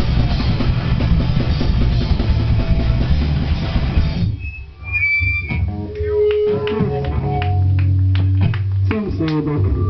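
Rock band playing live: distorted electric guitar, bass guitar and a Mapex drum kit, all cutting off suddenly about four seconds in. After that, loose guitar and bass notes ring out, with a short high squeal and then a held low bass note near the end.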